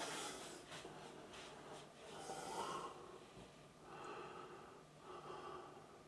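Faint breaths close to the microphone, a few soft swells in a row.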